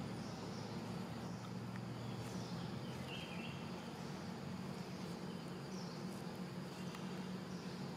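Outdoor ambience: a steady low hum with faint, short high chirps now and then, and one slightly lower chirp about three seconds in.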